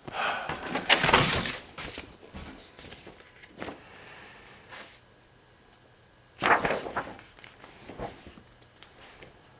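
Rustling handling noises at a workbench: two loud bursts of rustling, one right at the start lasting about two seconds and another about six and a half seconds in, with a few small knocks between.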